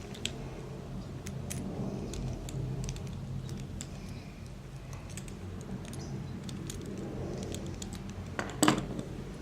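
Small metallic clicks and taps of a screwdriver loosening the terminal screws on a replacement extension-cord plug, scattered throughout, with a louder clatter near the end. A faint steady low hum runs underneath.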